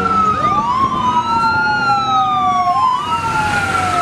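Sirens on passing fire trucks wailing at once. One slides slowly down in pitch while the other rises and falls, so the two cross each other. Vehicle engine noise runs low underneath.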